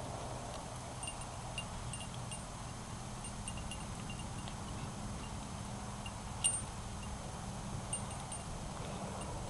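Faint, light metallic jingling and ticking from a puppy's collar and tags as she moves about sniffing on a wooden deck, with one sharper click about six and a half seconds in, over a steady low background hum.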